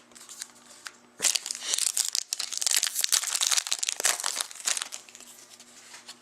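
Wrapper of a hockey card pack being opened and crumpled: dense crinkling that starts sharply about a second in and lasts about four seconds, with lighter rustling before and after.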